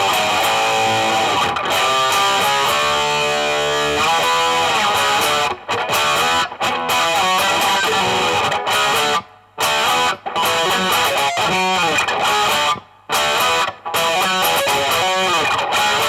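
Electric guitar, a 2019 Gibson Les Paul Standard with Burstbucker Pro humbuckers, played through a Blackstar HT Soloist 60 tube amplifier: a run of picked single-note lines and chords, broken by a few sudden short stops, the longest about nine seconds in.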